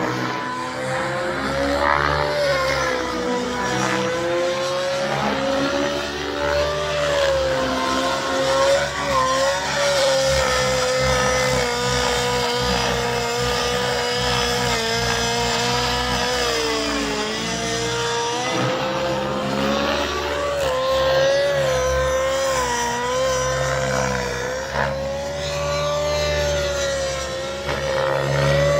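Nitro RC helicopter (SAB Goblin Black Nitro) with an O.S. 91HZ glow engine running at high rpm in flight: a steady high-pitched whine whose pitch wavers slightly as it manoeuvres.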